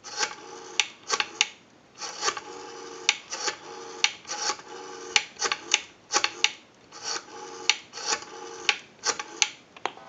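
Rotary dial of a Western Electric 302 desk telephone being dialed, digit after digit: each wind is followed by a whirring, clicking return as the dial spins back. There are about six returns.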